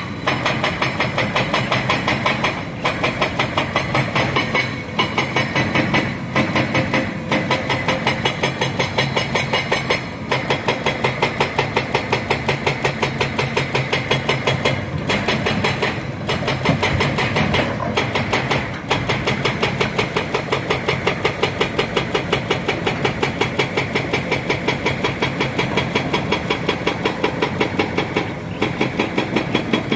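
Heavy diesel engines of an excavator and a dump truck running steadily during loading, with a rapid, even pulsing beat and a few brief dropouts.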